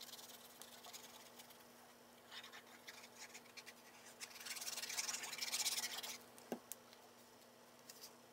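Faint scratching of a liquid-glue bottle's nozzle dragged across paper as glue is spread, louder for a stretch about halfway through, with light paper handling and one small tick.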